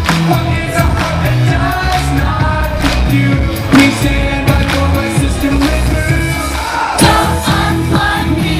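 Live pop-rock band playing loudly, with singing over drums and bass.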